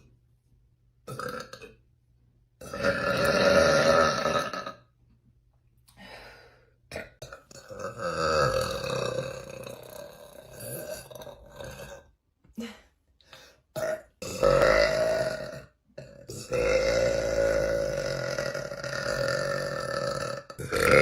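A woman burping deliberately: a series of long, drawn-out belches, several lasting two to four seconds, with short silent gaps between them.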